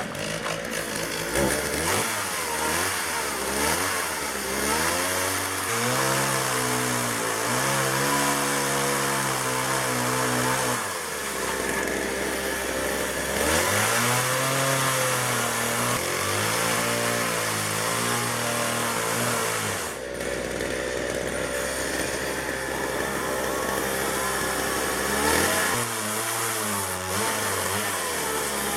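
Petrol chainsaw cutting into a log, its engine speed repeatedly rising and falling as the throttle is worked, with a steadier stretch after about twenty seconds and more revving near the end.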